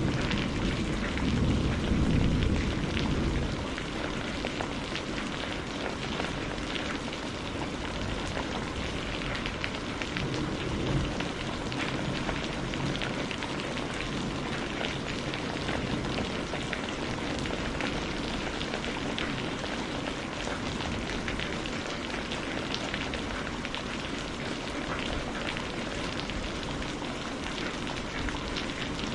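Steady rain falling, a dense even patter. A low rumble fades out over the first few seconds.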